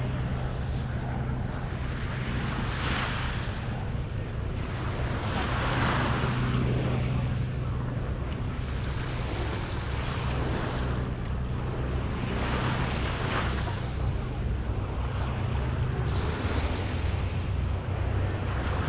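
Small waves breaking and washing up a sandy beach, swelling and fading about every three seconds, over a steady low rumble of wind on the microphone.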